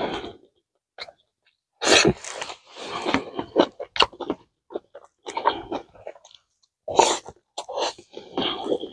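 Close-miked eating: chewing and lip-smacking in irregular bouts, with two loud, sharp mouth noises about two seconds and seven seconds in.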